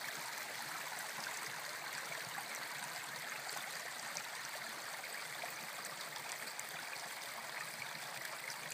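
Rock spring water running steadily down a shallow stone channel, a continuous babble of small splashes.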